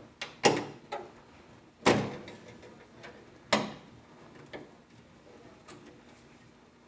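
Sharp snaps and clicks of the spring clips of a 1967–72 GM truck's outer beltline weatherstrip being pried out of the door with a clip removal tool. There are three loud snaps about half a second, two seconds and three and a half seconds in, with lighter clicks between.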